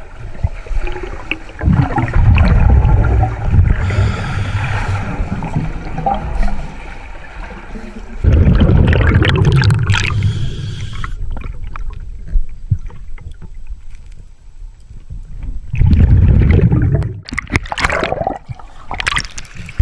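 Scuba diver breathing underwater through a regulator: exhaled bubbles rumble and gurgle in three long bursts a few seconds apart, with fainter hissing between them.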